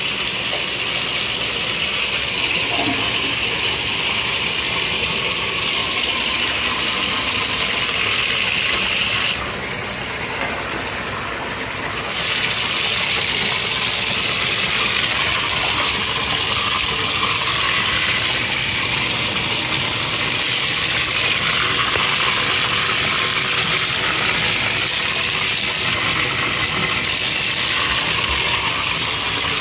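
Water running steadily into a bathtub, a continuous hiss of spray and flowing water, briefly quieter about ten seconds in.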